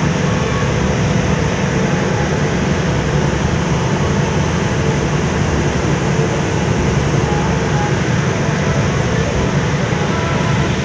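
Steady low rumble of a car ferry's engines running under way, mixed with the rush of water churning in its wake.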